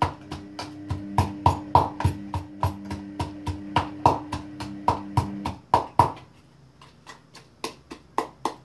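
Pestle pounding garlic and salt in a mortar: quick, regular strikes about four a second, then fewer and lighter strikes after about six seconds.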